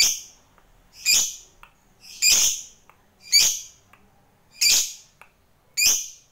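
A caged lovebird giving loud, shrill squawking calls, six in a row about one a second, each short and separate.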